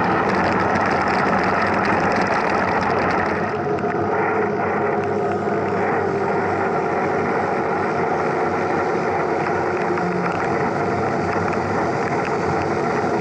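Steady noise of riding a mountain bike, wind and tyre rumble on the moving camera, holding a constant level throughout.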